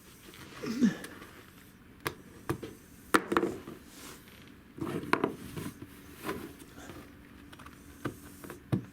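Irregular knocks, clatters and scuffles of cats chasing and batting a small toy around a room, with the sharpest knocks about two, three and five seconds in.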